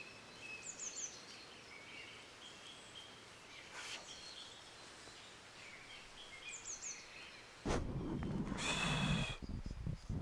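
Faint dawn-chorus birdsong: scattered chirps and short descending trills. About eight seconds in, a louder rustling and rasping of movement cuts in and runs to the end.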